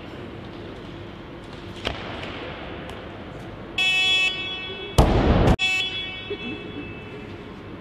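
Weightlifting competition down signal: an electronic tone about four seconds in, as the clean and jerk is held overhead, telling the lifter to lower the bar. About a second later comes a loud crash, the loaded barbell with bumper plates dropped onto the platform, and the tone is heard again after it.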